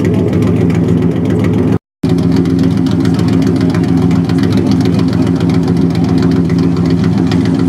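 A Nissan Z sports car engine idling steadily and loud. The sound drops out completely for a moment about two seconds in.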